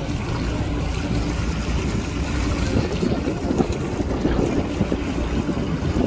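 Motorboat underway at sea: its engine running steadily under wind buffeting the microphone, with water rushing past.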